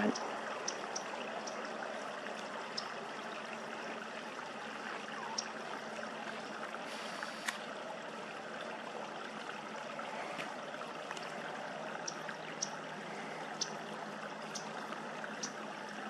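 Steady outdoor background hiss with a faint low hum, dotted with short, faint high-pitched chirps or ticks every second or so.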